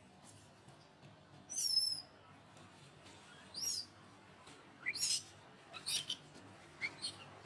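A series of five short, high-pitched squeaky calls, some rising in pitch, spaced about a second apart.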